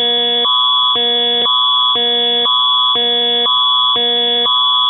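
Canadian Alert Ready emergency attention signal: a steady high tone with two lower chords swapping every half second in an even, repeating warble.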